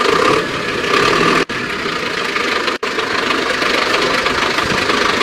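GAZ-3308 truck's diesel engine running steadily and softly. The sound cuts off abruptly at the end.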